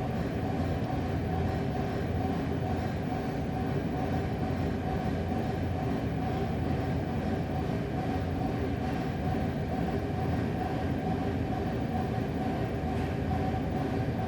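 Steady low rumble with a constant droning hum of several tones that does not change, with no separate bangs standing out.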